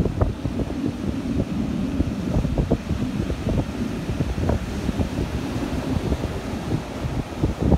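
Wind buffeting the microphone of a phone carried in a shirt pocket: a rough, low rumble broken by frequent short jolts, with beach surf behind it.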